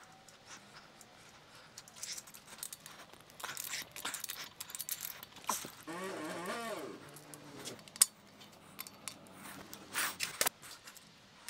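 Metal parts of a stripped BMW B58 engine block being handled by hand: the timing chain and connecting-rod parts clinking and rattling in irregular clicks, with one sharp metallic click about eight seconds in.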